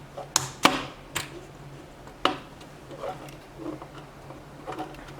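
Sharp plastic clicks and knocks as a DJI Mavic Mini propeller guard is pressed and snapped onto the drone's arms: four louder clicks in the first two and a half seconds, then fainter handling knocks.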